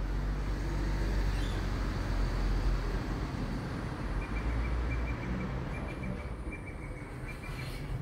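Low engine rumble of a motor vehicle, loudest in the first few seconds and then easing off. From about four seconds in, a faint high chirping repeats several times a second.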